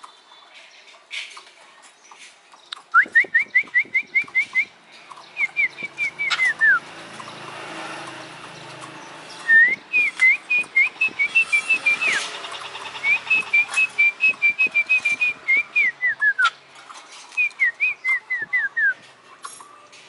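A caged magpie (giẻ cùi) calling in loud bursts of quick, clear whistled notes, about six to eight a second, in five runs of one to three seconds. Several runs drop in pitch at the end, and scattered sharp clicks come in between.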